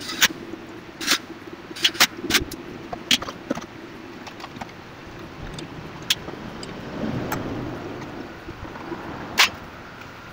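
Sharp plastic and metal clicks and knocks as a desk fan's grille and covers are fitted back together: a quick cluster in the first few seconds, one more a little past the middle, and the loudest near the end.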